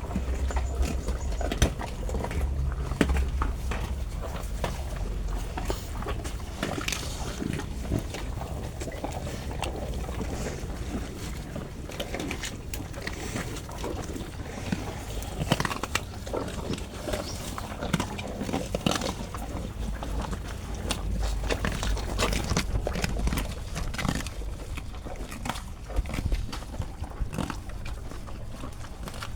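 A cow eating tubers, with irregular crunching and chewing noises and a low rumble underneath.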